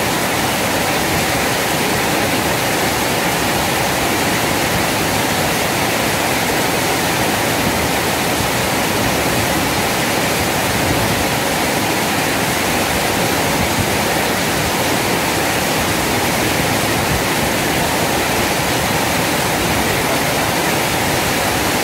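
Water pouring over a small weir and rushing downstream in a fast current: a loud, steady, even rush with no changes.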